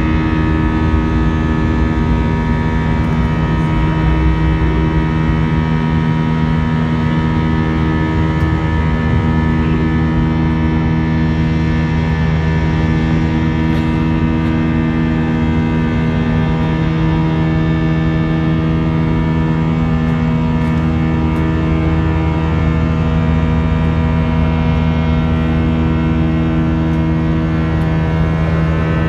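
Jet airliner's turbofan engines running steadily, heard inside the cabin during the climb after takeoff: a constant drone of several steady tones over a rushing noise.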